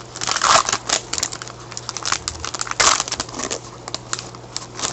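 Crinkling and crackling of a hockey card pack's wrapper being torn open and handled: a busy run of short rustles and clicks, with louder crinkles about half a second in and near the three-second mark.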